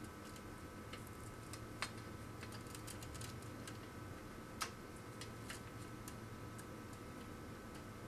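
Faint clicks and ticks of network cables being pressed into the slots of a plastic patch-panel form-up guide, with two sharper clicks about two and four and a half seconds in, over a steady low hum.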